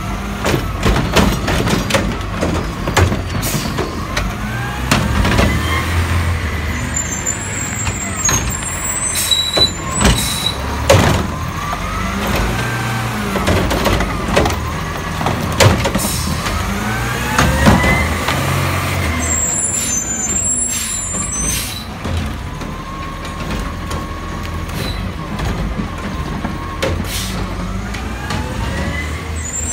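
CNG-powered automated side-loader garbage truck cycling its hydraulic arm to lift and empty a wheeled trash cart into the hopper: the engine runs under a rising and falling hydraulic whine, with sharp knocks as the cart is shaken out and set back down. A thin high squeal comes twice.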